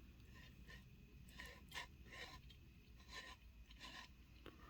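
Near silence with faint, scattered rubs and light clicks from hands handling a small die-cast toy truck.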